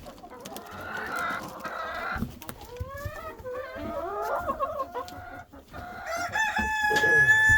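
Chickens clucking, with short calls that slide up and down in pitch, then one long held call lasting over a second near the end.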